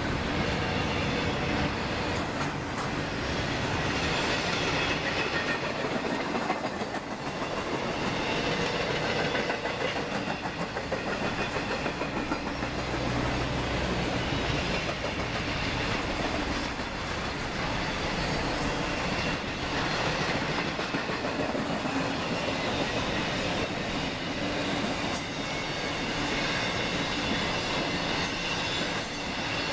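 Intermodal freight train cars loaded with double-stacked containers and highway trailers rolling past: a steady noise of steel wheels on the rails with clickety-clack over the joints.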